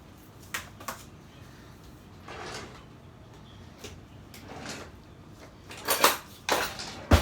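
Kitchen handling sounds: light clicks about half a second and a second in, several short scraping or rustling sounds through the middle, and a loud sharp knock near the end.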